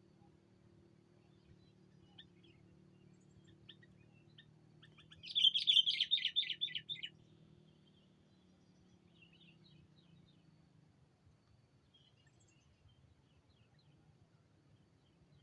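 Sooty-headed bulbul calling: a loud burst of quick chirps lasting about two seconds, a third of the way in, with fainter scattered chirps before and after. A decoy bulbul calling out to rival birds.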